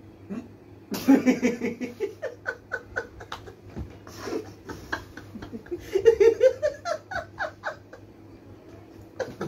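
Men laughing in quick, repeated pulses, about five a second. The laughter is loudest about a second in and again around six seconds in, then fades near the end.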